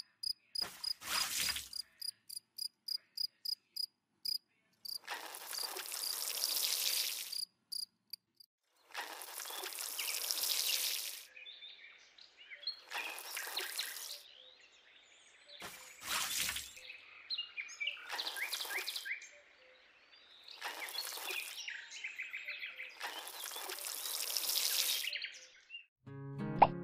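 Water poured from a small toy bucket in short spells, first splashing into a miniature plastic pond and then trickling over sand rows. About seven grainy pours of one to two seconds each follow a run of quick light ticks.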